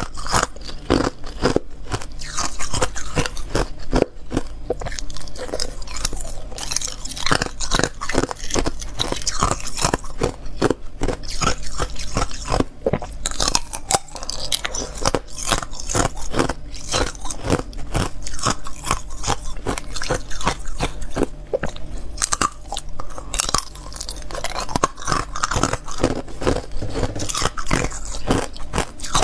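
Thin, clear ice being bitten and chewed: a fast, continuous run of sharp cracks and crunches as the brittle pieces break between the teeth.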